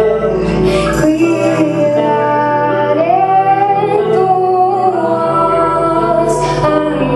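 Live band music with a woman singing long held notes over instrumental accompaniment, one note sliding up and holding about three seconds in; the bass line changes note twice.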